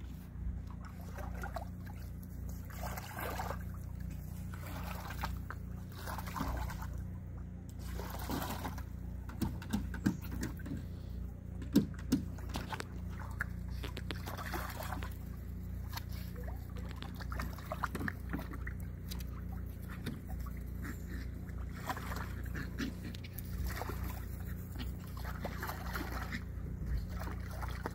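Water sloshing and trickling in a shallow plastic kiddie pool as a wet Morkie puppy wades and moves about in it, with a few brief puppy whimpers.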